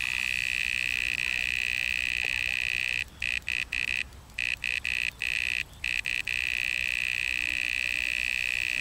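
Electronic carp bite alarm sounding a continuous high tone as a fish runs with the bait and takes line. The tone breaks off several times, for up to about half a second each, from about three to six seconds in, then carries on steadily.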